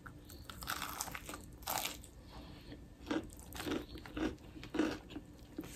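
Biting into a crispy fried chicken sandwich on a soft bun, then chewing: a string of short, irregular crunches.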